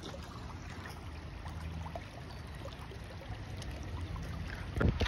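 Water running and washing, under a low rumble of wind on the microphone, with a sharp knock near the end.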